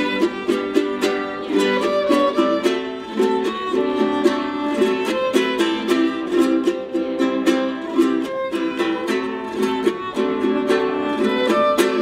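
Background music of quickly plucked string instruments, a steady run of short picked notes.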